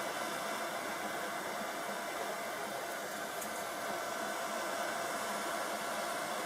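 Hot-air heat gun blowing steadily: an even rushing hiss with a faint steady hum in it.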